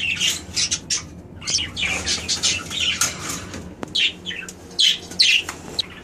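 Caged pet parrots chirping and squawking in many short, quick calls, with a couple of light clicks.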